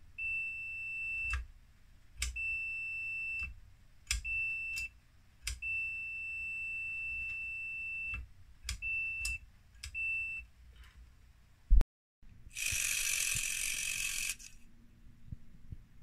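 A digital multimeter's continuity beeper sounds in six high, steady beeps of uneven length, from half a second to two and a half seconds, each starting with a small click, as wire contacts are touched together and parted. Near the end comes one sharp, loud click, then about two seconds of harsh hiss-like noise.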